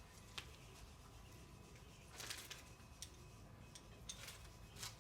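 Near silence: room tone with a few faint light clicks and a brief faint rustle.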